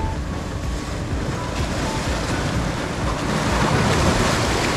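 Sea waves washing and breaking against the rocks of a stone breakwater, swelling to a louder splash about four seconds in, with wind buffeting the microphone.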